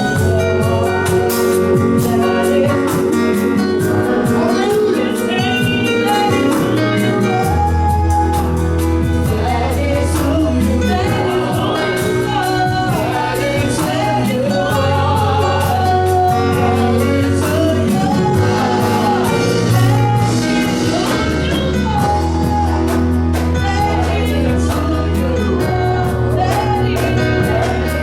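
Gospel music: singing over a band with sustained chords and a bass line that changes notes every few seconds.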